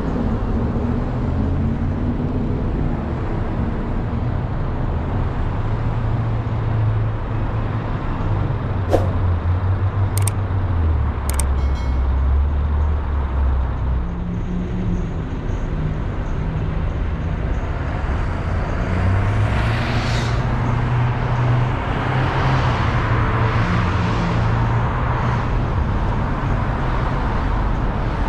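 Car driving along a street: a steady engine hum under tyre and road noise. The hum drops lower about ten seconds in and rises again near eighteen seconds. A few sharp clicks come between about nine and twelve seconds in, and a brief hiss about twenty seconds in.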